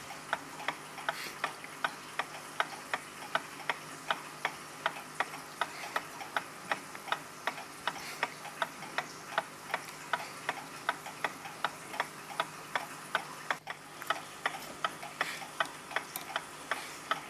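Mechanical clock ticking steadily, a few even ticks a second, over a faint low hum.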